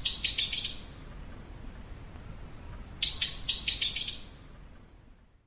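Yellow-billed blue magpie calling: a quick run of short repeated notes right at the start, and a second run of about seven notes about three seconds in, each run lasting about a second.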